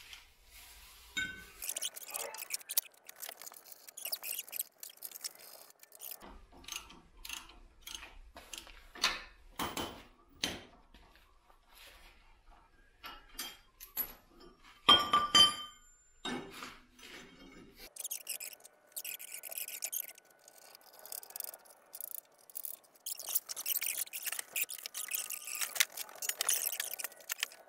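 Steel bolts and hitch parts clinking and knocking against the tractor's frame and a concrete floor as a plate is unbolted and a steel receiver hitch is fitted, with rustling in between. One loud, ringing metallic clink comes about halfway through.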